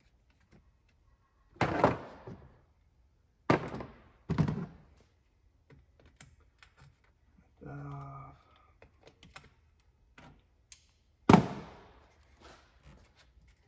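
A handful of sharp clunks and knocks from hand tools and engine parts being handled, the loudest near the end, with faint clicks between them.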